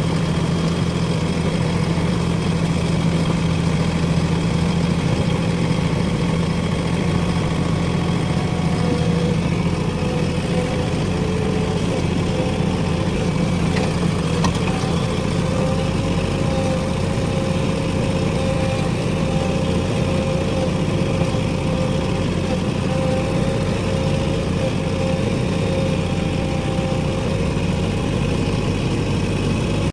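JCB 3DX backhoe loader's diesel engine running steadily at a fairly constant speed.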